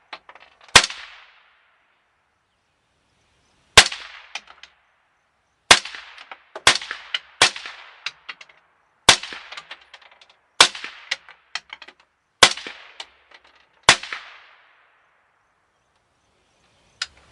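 Eminence Arms AR-15-style rifle in 5.56/.223 firing about ten single shots, one to two seconds apart, each a sharp crack with a short echoing tail; the last, near the end, is fainter.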